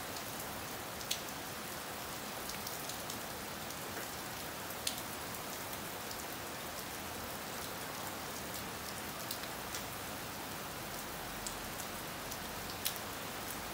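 Steady rain falling, with a few sharp taps, the clearest about a second in, near the middle and near the end.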